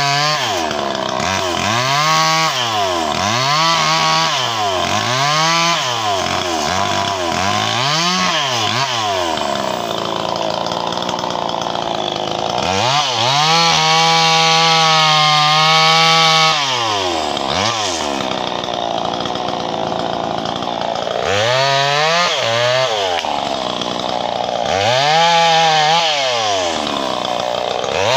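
Two-stroke chainsaw cutting through the limbs of a felled tree, the engine revving up to full speed and dropping back toward idle again and again, with one longer full-throttle cut about halfway through.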